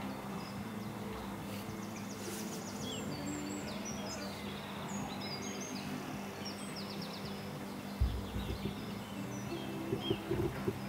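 Open-air background: small birds chirping and trilling from the trees over a steady low hum. A few dull low thumps sound about eight seconds in and again near the end.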